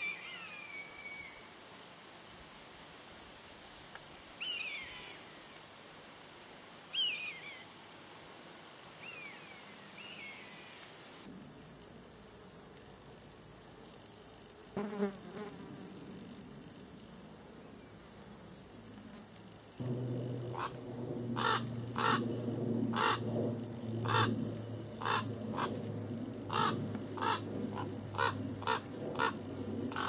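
Countryside soundscape: a steady high insect drone with several short, descending mewing calls of a common buzzard in the first third. After a cut about eleven seconds in, a softer pulsing insect trill. From about twenty seconds in, frogs croaking in a chorus, about one and a half croaks a second.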